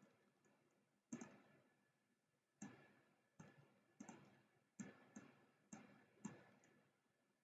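Computer mouse clicking: about eight faint, sharp clicks at an uneven pace, each with a short fading tail.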